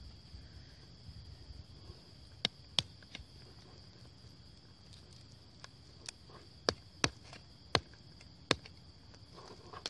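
Sharp clicks and cracks, about eight of them, beginning a couple of seconds in, as a large kitchen knife is worked and pried into the spiky husk of a durian to split it open. Under them runs a steady high chirring of insects.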